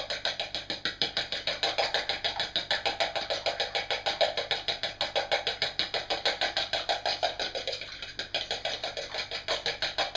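Fork beating a raw egg in a drinking glass: fast, even clinking strokes against the glass, about seven a second.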